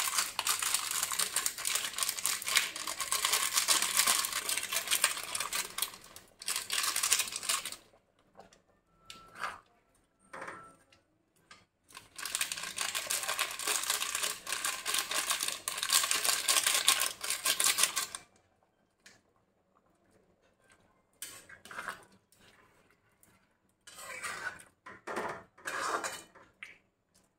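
A plastic-foil spice sachet crinkling as ground garam masala is shaken out of it, in two long rattling stretches with quiet gaps between, then a few short scrapes of a steel spatula stirring in the metal kadai near the end.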